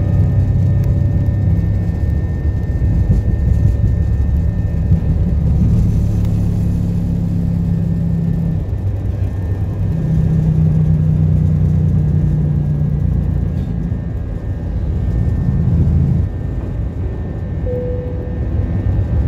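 Jet airliner cabin noise during the takeoff roll: engines at takeoff power with a loud, steady low rumble from the wheels on the runway. The rumble eases about sixteen seconds in as the aircraft lifts off.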